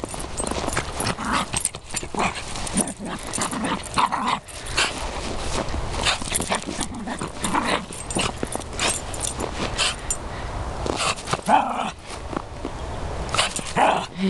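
Small dog romping and rooting in snow: irregular crunching of paws and body pushing through the snow, mixed with the dog's snuffling and short vocal noises.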